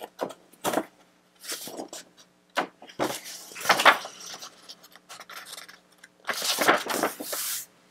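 Pages of a scrapbook paper pad being turned and smoothed by hand: irregular short paper rustles and swishes, with a longer sliding rustle near the end.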